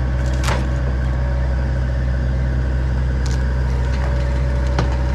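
John Deere 85G excavator's diesel engine running steadily, with a few sharp knocks during the stump removal.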